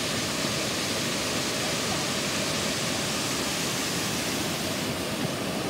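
A cascading waterfall's steady rush of water pouring down rock ledges, constant and even throughout.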